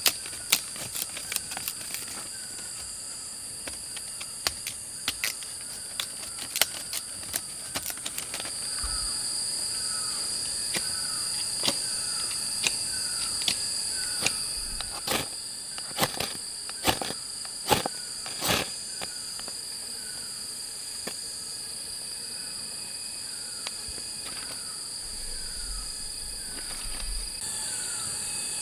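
Insects trilling steadily in a forest, with a short falling call repeated every half second or so from about ten seconds in. Over it come scattered sharp clicks and knocks, the loudest grouped a little past the middle.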